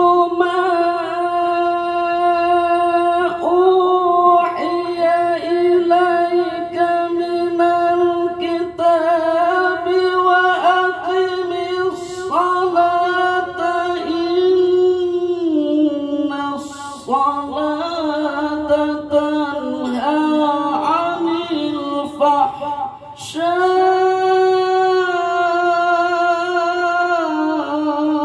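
A male qari reciting the Quran in the melodic tilawah style, holding long, high, ornamented notes with wavering runs, pausing briefly for breath late on before the next phrase.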